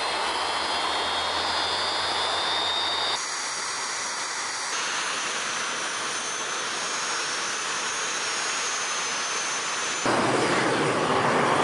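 Jet engines of BAE Hawk trainer jets running on the ground: a steady rushing noise with a high, thin whine. The whine jumps in pitch about three seconds in, and the noise gets louder and fuller near the end.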